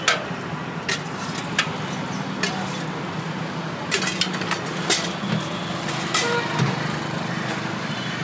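Steady road traffic hum, with sharp clinks of steel ladles and serving spoons against steel pots about once a second as food is served.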